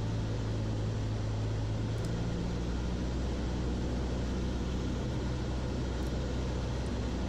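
Cessna 152's four-cylinder Lycoming engine and propeller running steadily, heard from inside the cabin as an even drone with wind noise, at the reduced power of a final approach.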